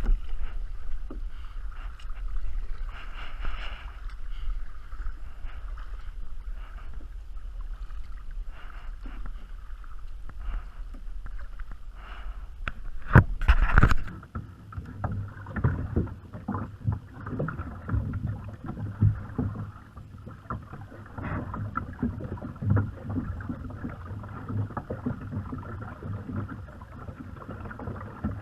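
Kayak on the water: low rumble for the first half, a burst of loud knocks about 13 seconds in, then repeated irregular paddle strokes and knocks against the hull.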